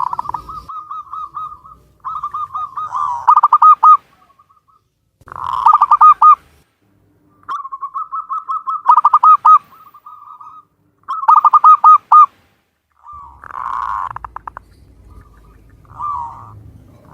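Zebra dove (perkutut, local Javanese type) cooing: about six phrases, a phrase every two to three seconds, each a soft rolling coo that ends in a quick run of loud staccato notes.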